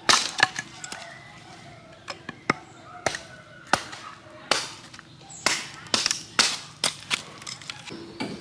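A wooden stick jabbed repeatedly into dry, stony ground: about a dozen sharp knocks at uneven intervals.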